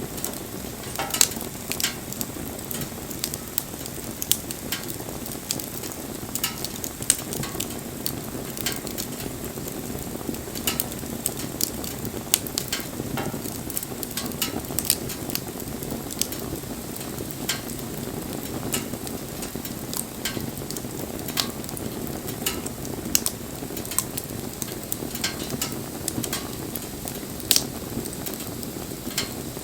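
Wood campfire burning, crackling with frequent irregular sharp pops over a steady low rush of flame.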